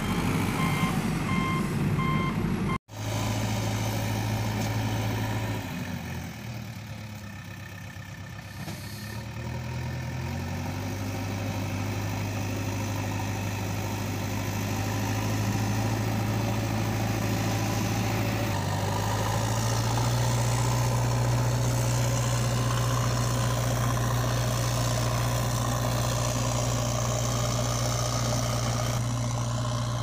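Reversing alarm beeping steadily for about the first three seconds, cut off abruptly. A steady low heavy-vehicle engine drone follows; it fades somewhat around six to ten seconds in, then swells back and runs evenly.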